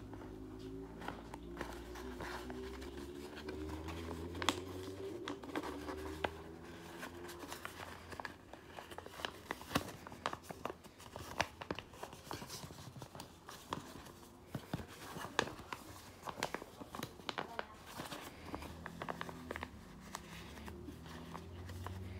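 Paper being folded and creased by hand: crinkling and rustling with many short, sharp crackles as the folds are pressed flat.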